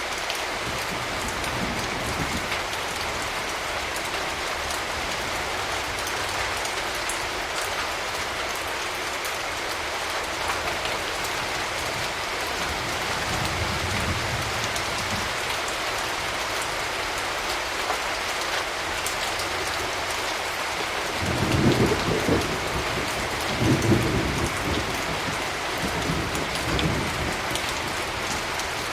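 Steady rain falling, with thunder rumbling low in the distance, faintly about halfway through and more strongly in a few rolls during the last third.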